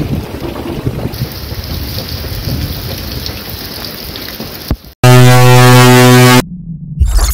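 Wind buffeting the microphone for about five seconds, then a sudden switch to a loud, steady horn-like buzz lasting about a second and a half.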